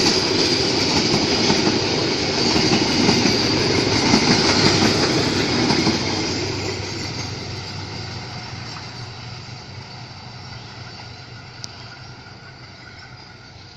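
Train running past on the rails, loud for the first several seconds and then fading steadily as it moves away.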